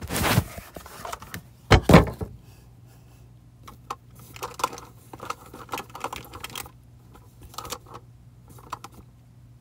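Handling noise from the tablet that is recording: two loud scraping bumps as it is moved and set in place, then several seconds of small scattered clicks and rustles of objects being handled.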